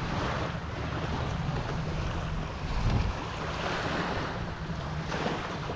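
Wind buffeting the microphone, with small waves washing onto the sand and rocks.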